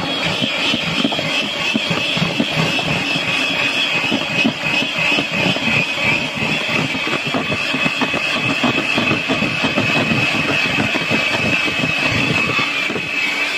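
Electric hand mixer running steadily, its beaters whisking eggs and sugar in a bowl, with a high motor whine that sinks slightly in pitch as it goes.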